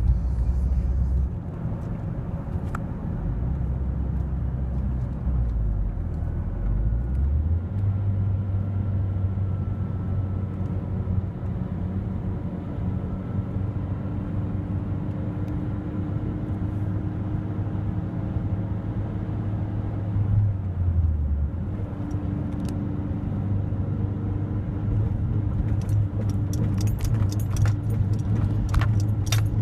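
Mazdaspeed3's turbocharged 2.3-litre four-cylinder engine running with the car under way. Its low drone jumps in pitch several times in the first several seconds and dips briefly about two-thirds through, which the owner suspects is a misfire or a fuel pump problem. Sharp clicks and rattles come in near the end.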